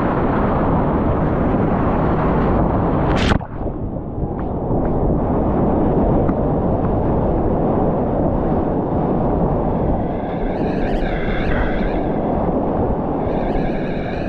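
Whitewater rapids rushing loudly around a GoPro camera, a steady dense roar of churning water with a sharp hit about three seconds in, after which the level briefly drops.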